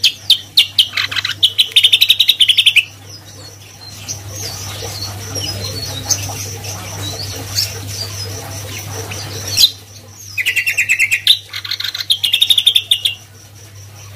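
Caged cucak kombo singing: a rapid run of loud repeated notes at the start, softer chirps, then another rapid run about ten seconds in. A low steady hum sits underneath.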